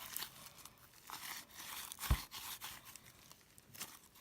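Stiff butter slime being poked, pulled and torn apart in the hands, with irregular crackling and tearing sounds and one sharp click about two seconds in.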